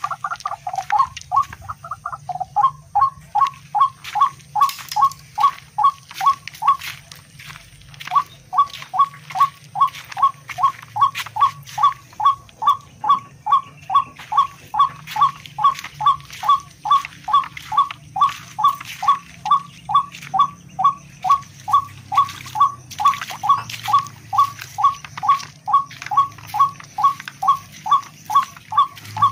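Rail (tikling) calling: a long, fast, even series of short sharp notes, about two or three a second, breaking off for about a second some seven seconds in.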